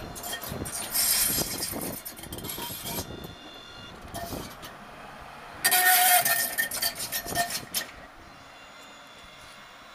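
Alstom Citadis 302 tram passing close at low speed as it pulls away from the terminus, its wheels running on the rails with a thin squeal. It is loudest about a second in and again around six seconds in, then quieter.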